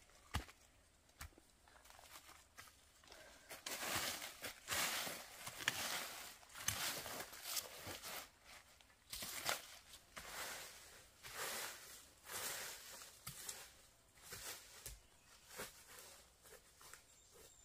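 A couple of dull thuds of a hoe digging into soil, then from about three and a half seconds in, dry bamboo leaves crackling and rustling underfoot and under handling in uneven bursts.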